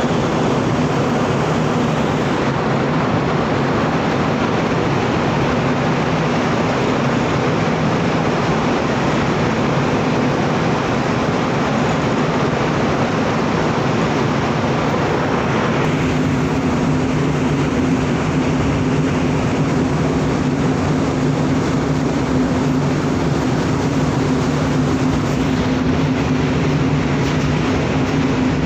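Steady loud drone of a cargo ship's engines and machinery, with a low hum that shifts up in pitch about halfway through.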